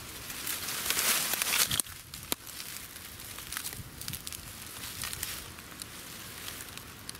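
Dry leaves and twigs in leaf litter rustling and crackling as they are trodden or pushed aside, with scattered sharp snaps. The rustling is loudest in a burst about a second in, then carries on more quietly.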